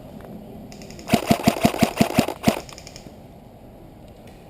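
Airsoft electric gun (AEG) firing a quick string of about eight shots, roughly six a second, each a sharp snap with the gearbox whirr, starting about a second in and stopping about halfway through.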